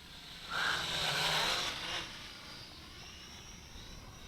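Small HT F801 quadcopter in flight, its propellers whining faintly with a pitch that wavers up and down. A louder rushing noise swells about half a second in and fades by about two seconds.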